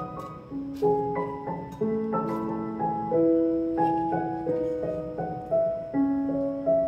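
Background piano music: a gentle melody of single notes that strike and fade.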